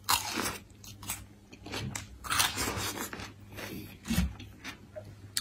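A person biting into and chewing pieces of green melon: several separate short bites and chews.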